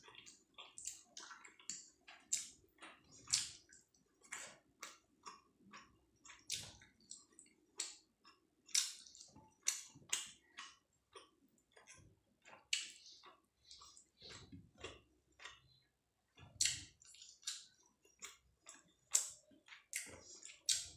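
Close-up eating by hand: wet squishing and sticky clicks of rice and dal being mashed with the fingers on a plate, with chewing and lip smacks, in a run of short irregular clicks.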